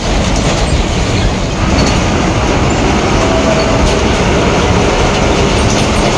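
Inside a moving state transport bus: the diesel engine under the cowling beside the driver is running steadily, with the old body panels and fittings rattling over the road.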